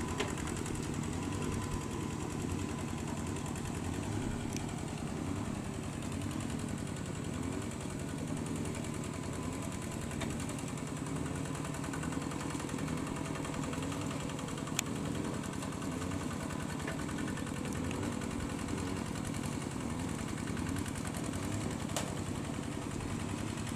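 A small engine running steadily at an even pace, with no change in speed.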